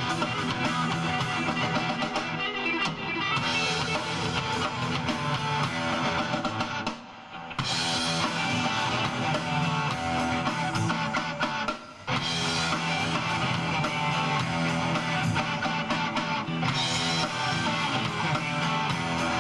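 Live rock band playing, with electric guitars over a drum kit. The band cuts out briefly twice, about a third of the way in and again a few seconds later, then comes straight back in.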